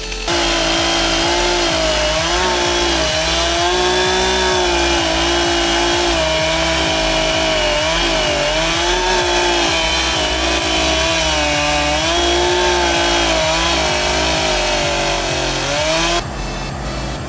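Petrol chainsaw running at high revs as it cuts into the trunk of a standing tree near its base, its pitch wavering and dipping as the chain bites and loads up; it stops suddenly about a second before the end. A faint steady beat of background music runs underneath.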